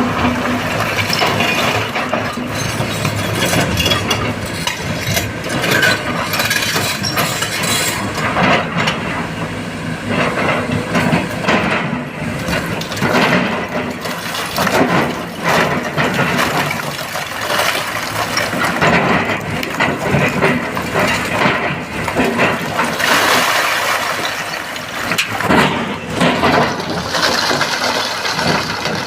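Excavator working: its diesel engine runs steadily under load, with repeated clattering and clinking of rock throughout.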